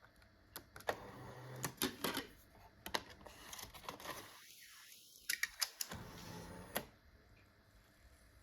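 Kenwood KDC-X789 car CD receiver being operated: a run of sharp plastic clicks and taps from its buttons and controls, about a dozen spread over six seconds, with short stretches of its audio output between them. The audio briefly cuts out a little past the middle.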